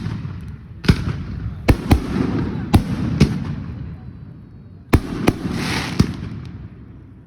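Fireworks going off: about nine sharp bangs in two bunches, with a lull in between. Each bang is followed by a fading rumble and crackle.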